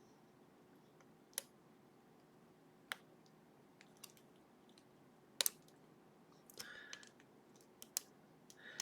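A short hook pick and tension wrench working the pins of a sleeved Ruko lock with barrel drivers: a few faint, sharp metallic clicks a second or more apart, with brief scraping of the pick twice in the second half.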